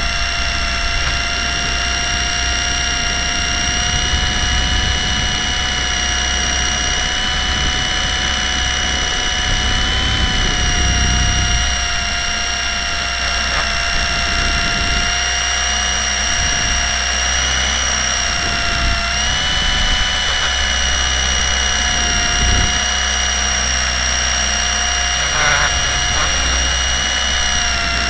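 Blade 120 SR micro electric RC helicopter in flight, heard from a camera mounted on it: a steady high motor and rotor whine that dips and rises slightly in pitch now and then, over a low rumble.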